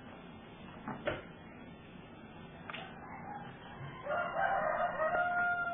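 Faint clicks of a crimping tool closing on an RJ45 plug about a second in. About four seconds in comes a louder, long animal call held on one pitch for about two seconds, falling away at the end.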